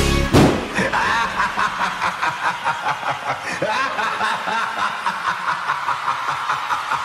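The song's music ends on a final hit, and then a man gives a long, menacing horror-film laugh, a rapid string of even 'ha-ha-ha' pulses with a reverberant echo.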